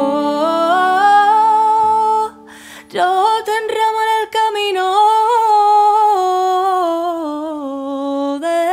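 Music: a woman sings long held notes that glide up and down, over a low steady tone that stops about two seconds in. The music drops out briefly, then the voice returns with one long line that sinks lower toward the end.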